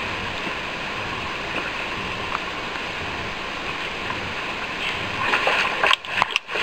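Fast river water rushing over rocks, a steady hiss. From about five seconds in, a hooked steelhead thrashes and splashes at the water's edge, louder and uneven.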